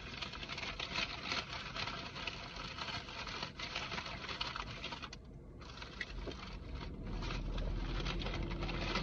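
Paper food bag and wrappers crinkling and rustling as they are rummaged through, with a short pause about five seconds in. A low steady hum comes up near the end.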